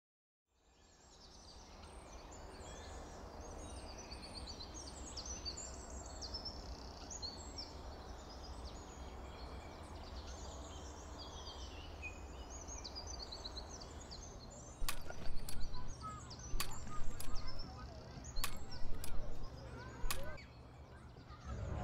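Outdoor park ambience fading in: small birds chirping and singing over a steady low rumble. From about 15 seconds in, a run of sharp knocks, about nine over five seconds, is louder than the rest.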